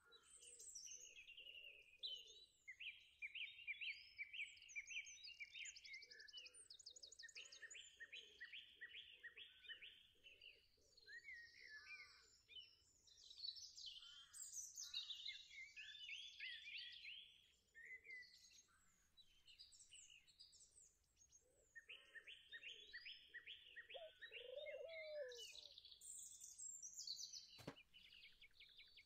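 Songbirds singing quietly, several overlapping with chirps, sliding whistles and fast trills. A single sharp click comes near the end.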